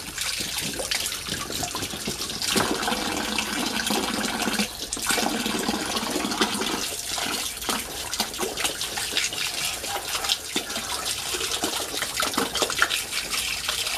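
Water running in a steady stream from a pipe into a shallow paddling pool, splashing onto the water surface and over a child's hands held under it.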